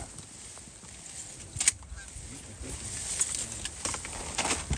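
Canada geese honking faintly, with one sharp crack about a second and a half in and a rush of noise building toward the end.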